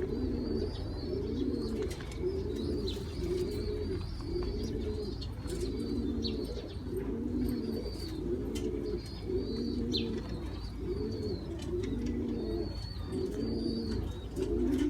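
Pigeons cooing in a steady run of low phrases about once a second, with faint high chirps from smaller birds and a low hum underneath.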